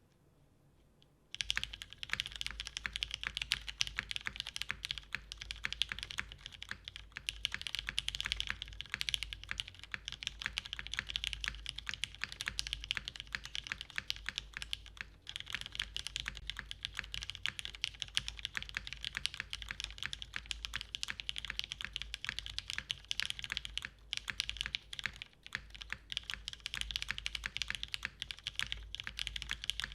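Continuous fast typing on a Matrix 8xv2.0 mechanical keyboard, which has an aluminium plate, lubed Cherry MX Black linear switches and GMK Dolch keycaps: a dense, rapid run of keystrokes that starts about a second and a half in.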